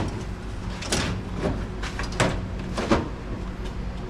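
Four sharp knocks and clunks from handling parts of a fridge, with a few fainter ticks, over a steady low hum.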